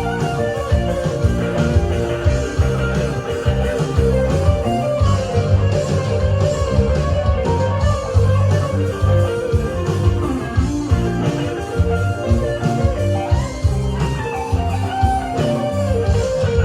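Band music from a sound check: an electric guitar plays a moving melodic line over a steady bass and rhythm.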